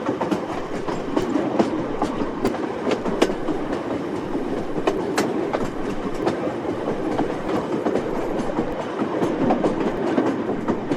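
Old train running along the track: a steady rolling rumble with scattered sharp clicks and knocks from the wheels and cars.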